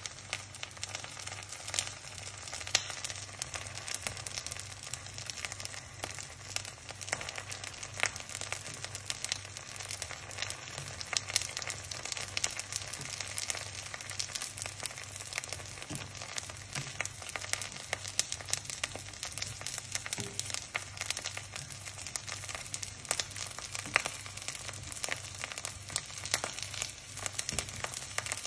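Slices of common stinkhorn egg frying in a pan: a steady crackling sizzle made of dense fine pops, with a few louder pops, over a low steady hum.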